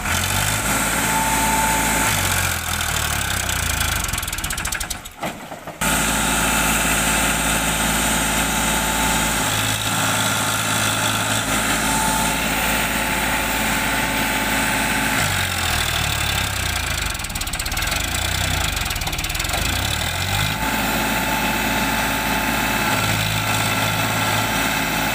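Farmtrac tractor's diesel engine running under load, hauling a loaded sand trolley through water, its speed rising and falling. The sound drops out briefly about five seconds in.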